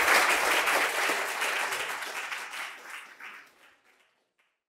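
Audience applauding, dying away over the last couple of seconds to a few scattered claps.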